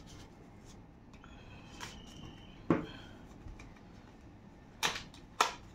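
A small cardboard earbud retail box being handled and opened, its seal worked at with a knife: a short scrape, a knock a little before halfway, and two sharp clicks near the end.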